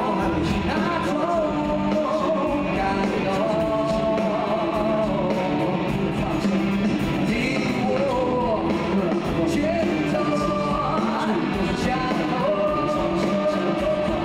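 Live rock song: male voices singing long held notes with vibrato over acoustic and electric guitars.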